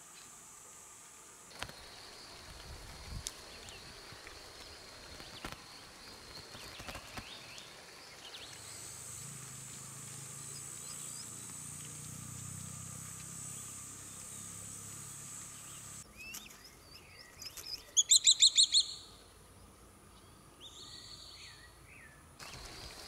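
Swallow-tailed kite calls over a steady high insect drone: short thin call notes, then about three quarters of the way through a loud, fast run of about eight shrill whistled notes.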